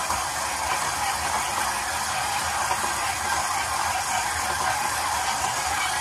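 KitchenAid stand mixer running steadily, its dough hook kneading pizza dough in the steel bowl.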